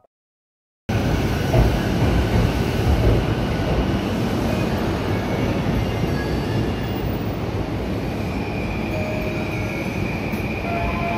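JR East E233-series Keihin-Tohoku Line electric train running, a steady rumble of wheels and running gear that cuts in suddenly about a second in. Thin whining tones come in about eight seconds in.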